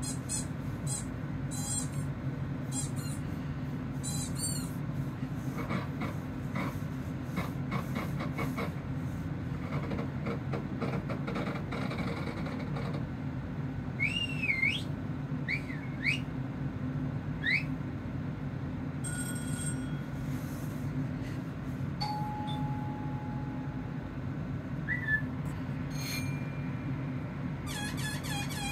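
A string of assorted sound effects played through a television's speaker: scattered clicks, then a rapid run of clicking, then several quick rising whistles, a short held tone and a brief squeak, over a steady low hum.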